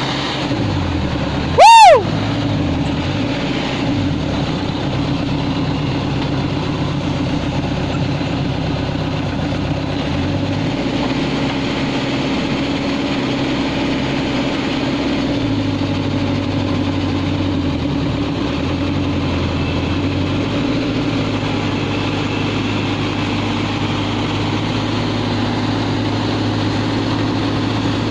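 Backhoe loader's diesel engine running steadily, its low pitch sagging and recovering a few times. About two seconds in, a brief, very loud, high-pitched squeal sweeps up and back down.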